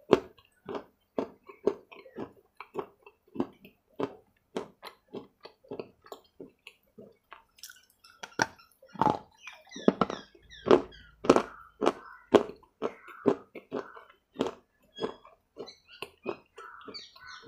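Close-miked crunching and chewing of water-soaked dark clay pieces, in a steady rhythm of about two chews a second, with a louder run of crunchy bites through the middle.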